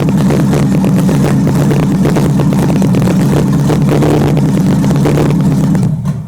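Car engine running steadily at idle with the electric radiator fan on, then stopping near the end once switched off. With the fan running the engine is slow to die after the key is turned off, an ignition-wiring problem the owner has not yet traced.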